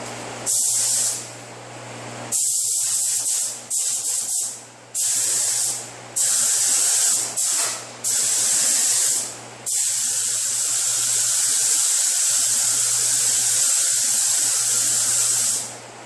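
Automotive paint spray gun hissing in a series of trigger pulls: about eight short bursts, then one long pass of about six seconds that cuts off sharply near the end.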